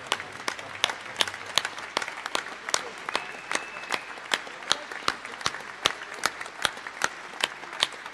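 Audience applauding, with one pair of hands clapping close by at a steady beat of about two and a half claps a second, louder than the rest.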